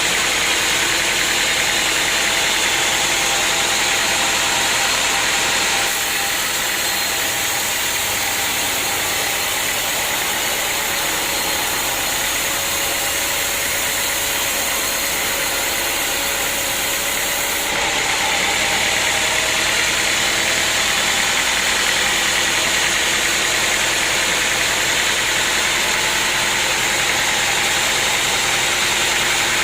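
Sawmill machinery running steadily with a loud, even engine-like noise. It steps down abruptly about six seconds in and back up around eighteen seconds in.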